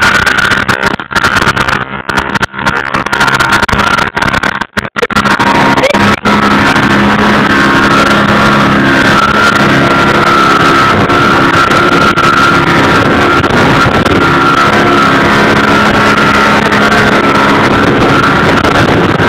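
Outboard motor running steadily at speed as the boat skims the water, with the rush of water and wind; the sound is choppy with brief dropouts for the first few seconds, then evens out.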